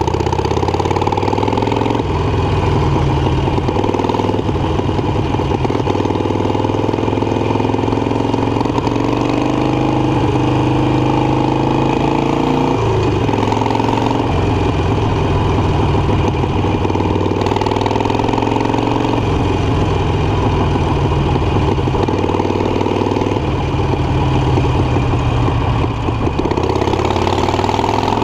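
Harley-Davidson Iron 883 Sportster's air-cooled 883 cc V-twin, fitted with an aftermarket Guerrilla exhaust, running under way. Its pitch climbs through each gear and drops back at the shifts every few seconds, with a few spells of steadier cruising.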